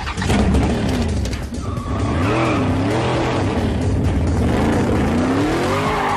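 Supercharged V8 engine of a muscle car, a Dodge Charger, revving up and down several times.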